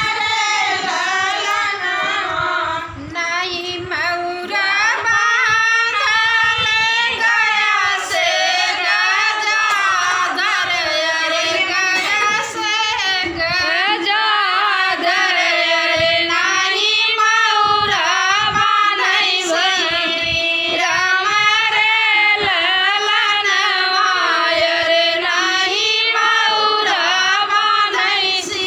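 Women singing a Hindi folk wedding song (vivah geet) together, one continuous ornamented melody without a break.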